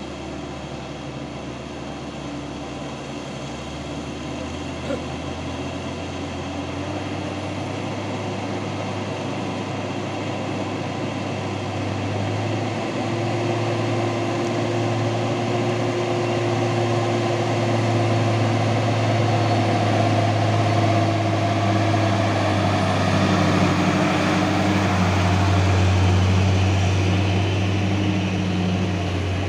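Diesel engines of heavy road vehicles: a dump truck approaching and passing close, growing steadily louder toward the end, with a road roller's engine running.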